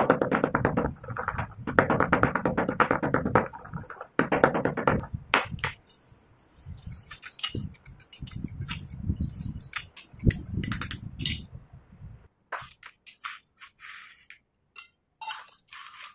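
Stone pestle grinding dry powder in a stone mortar: repeated grating, rubbing strokes that come and go in a rough rhythm, with knocks of the pestle against the bowl. Near the end only scattered sharp clinks remain.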